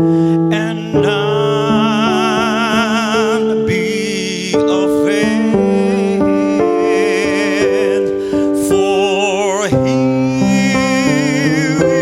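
A vocalist singing with wide vibrato over sustained electric keyboard chords that change every second or so.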